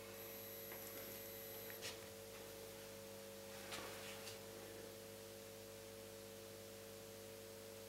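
Faint steady electrical hum made of several low steady tones, with a thin high whine during the first two seconds and a few faint ticks.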